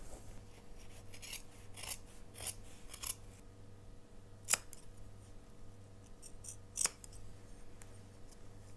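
Sewing scissors snipping through coat fabric to slash open a welt pocket slit toward its corners. A few short crisp cuts come in the first few seconds, followed by two sharper clicks of the closing blades a couple of seconds apart.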